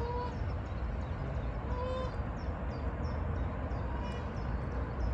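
Wind rumbling on the microphone with short, slightly rising calls from Canada geese on the water: one at the start, one about two seconds in and a fainter one about four seconds in. High, evenly repeated chirps from a small bird sit in the background.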